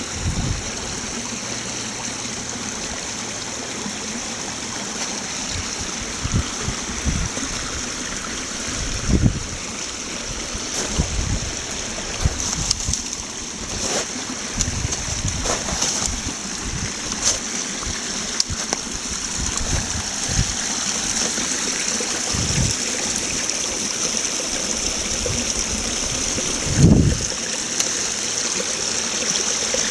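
Small snow-melt brook babbling and trickling, a steady rush of running water. A few low thumps break in now and then, the strongest near the end.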